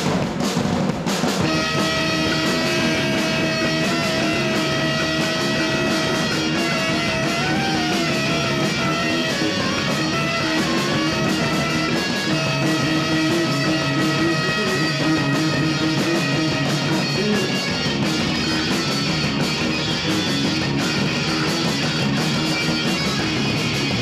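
Live rock band playing: electric guitar and drum kit, with the full band coming in about a second in. A saxophone plays over them, holding long notes and running a short melody.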